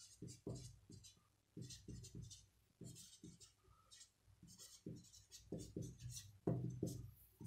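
Marker pen writing on paper: a run of short, scratchy strokes, several a second, as a word is written out letter by letter.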